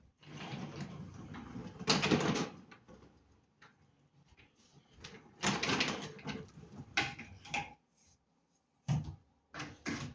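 The caster wheels of a FinePower MFP-1425 wet-and-dry vacuum rolling across a hard floor in two pushes, each lasting a couple of seconds, followed by a few short knocks near the end. The motor is not running.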